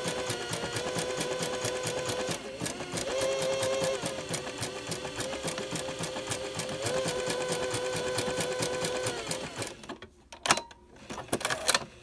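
Electronic sewing machine sewing an elastic zigzag stitch through cotton batting: a steady motor whine with rapid, even needle ticks, briefly slowing about two and a half seconds in and stopping near the end. A few sharp clicks follow.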